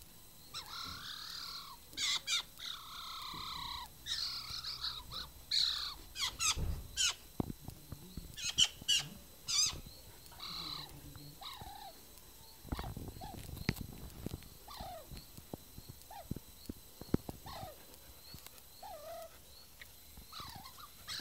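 Eurasian magpie calling in irregular bursts: harsh rasping chatter mixed with squeaky sliding notes, the sound of a tame young bird pestering and begging. A brief low rumble comes about two thirds of the way through.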